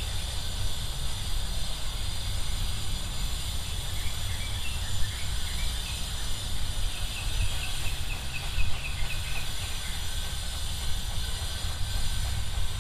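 Steady outdoor background noise: a low, uneven rumble and an even hiss, with a faint run of short high chirps around the middle.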